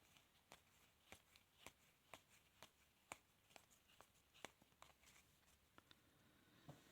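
Faint handling of trading cards, soft clicks about two a second as the cards are flicked through one by one.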